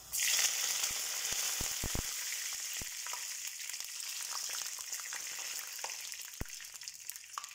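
Fresh curry leaves hitting hot oil during the tempering of mustard seeds and dried red chillies: a loud sizzle that bursts in the moment they go in and slowly dies down, with scattered pops and crackles.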